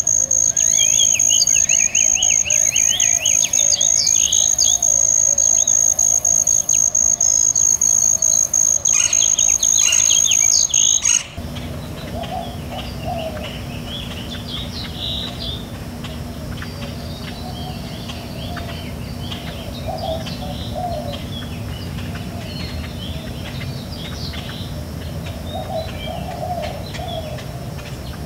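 Many small birds chirping, over a steady high whine. About eleven seconds in, the sound cuts abruptly to quieter birdsong over a low hum.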